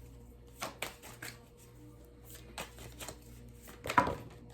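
Tarot cards being handled on a table: a scatter of light taps and clicks, the loudest about four seconds in, over a faint steady hum.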